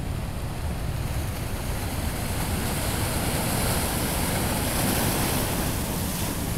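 Wake waves from a passing river freight ship washing and breaking over the rocks of the riverbank. The splashing builds from about a second in and is strongest past the middle, over a steady low rumble.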